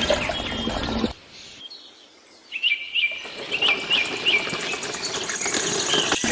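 Wet concrete pouring and splattering from a miniature mixer drum into a small metal toy wheelbarrow, and later tipped out of the barrow. Small birds chirp throughout, with a quick run of repeated chirps in the middle.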